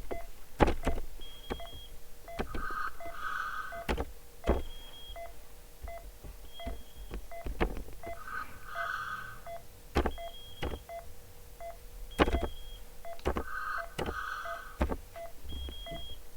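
Ventilator simulator's high peak pressure alarm beeping: short high tones repeating in a cycle, signalling raised airway resistance. Sharp clicks are scattered among the beeps.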